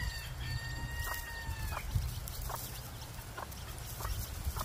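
Chickens calling: a long, steady, drawn-out call lasting about two seconds at the start, then four or five short, sharp clucks spaced out over the rest.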